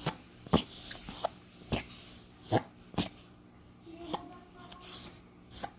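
Dog sneezing over and over: a string of short, sharp sneezes, about two a second at first, then further apart and fainter.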